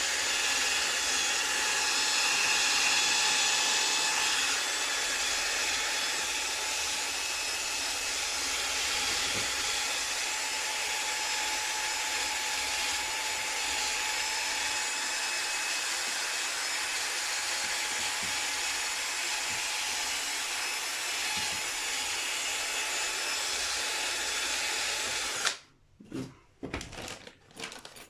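Electric polisher with a pad running steadily on a guitar's painted finish, buffing it with polish. It stops suddenly near the end, followed by a few light rubbing and handling sounds.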